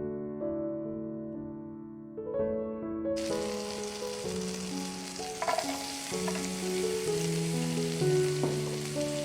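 Food sizzling as it fries in hot oil in a pan, starting suddenly about three seconds in, with a few light stirring knocks, over soft piano music.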